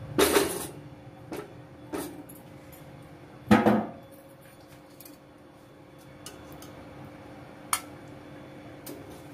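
Cooking utensils clattering and knocking against a steel kadhai of curry, a few separate strikes with the loudest about three and a half seconds in. A sharp metal clink follows near the end as the curry is ladled into a small steel serving bowl. A faint steady hum runs underneath.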